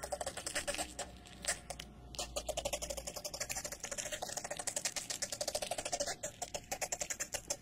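Rapid, dense clicking and crackling, many clicks a second, that thins out briefly between about one and three seconds in.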